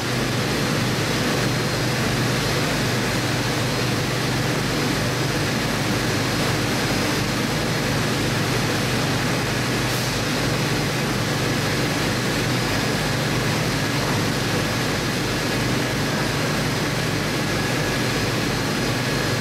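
Steady mechanical noise of background machinery running, a constant low hum under an even hiss.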